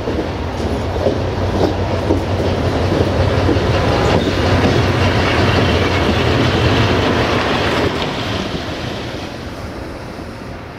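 LDH1500 diesel-hydraulic shunting locomotive running as it rolls slowly past, with a steady engine hum and a few wheel clicks over the rail joints. It builds to its loudest around the middle as the locomotive passes, then fades.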